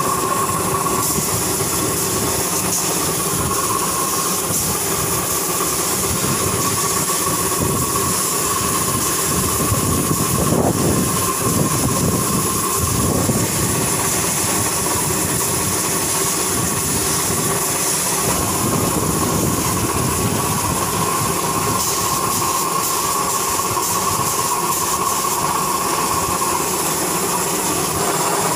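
Air compressor running steadily, with the high hiss of a paint spray gun's air. The drone swells briefly about ten seconds in.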